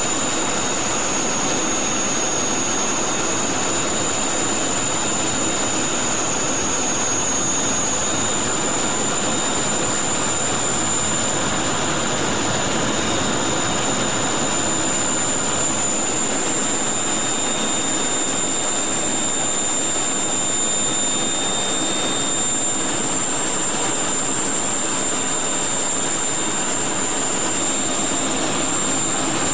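Steady cockpit noise of a Mirage III cruising at altitude: the Atar 09C turbojet and the rush of air, even and unchanging, with a thin high whine.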